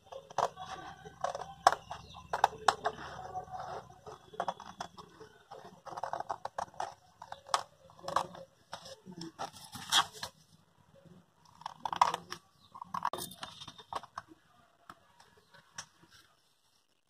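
Scissors cutting through a folded paper pattern sheet: an irregular run of snips that stops shortly before the end.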